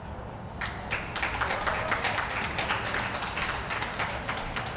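Audience clapping, starting about half a second in and going on as a steady patter of many hands.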